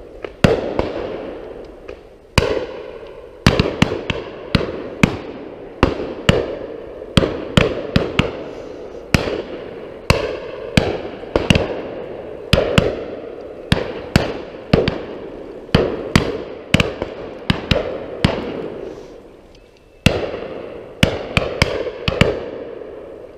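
A rapid, irregular volley of many shotgun shots from the guns firing at pheasants flushed over the line. Each shot is sharp with a fading echo. There is a short lull near the end, then the shooting picks up again.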